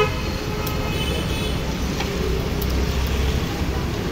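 Steady street traffic rumble, with a short vehicle horn toot right at the start and a fainter tonal call about a second in.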